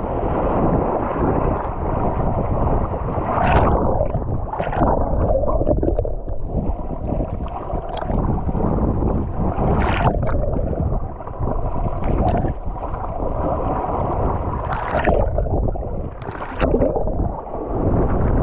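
Wind buffeting a GoPro's microphone while kitesurfing at speed, with splashes and slaps of the board and spray on the chop every couple of seconds.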